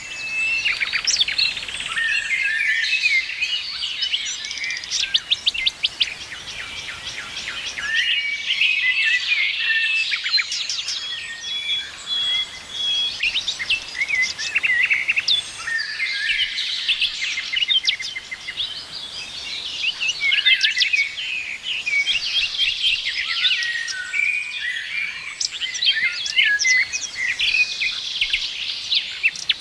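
Several songbirds singing and chirping together: a dense chorus of short chirps, trills and whistled notes, with bursts of fast repeated notes, over a faint steady hiss.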